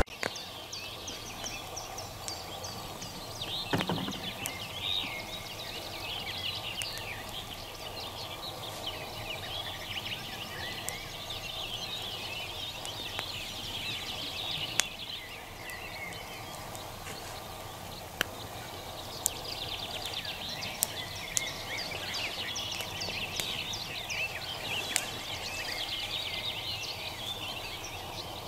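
Several birds singing together, a dense chorus of chirps and trills, with a few sharp clicks scattered through and a thump about four seconds in.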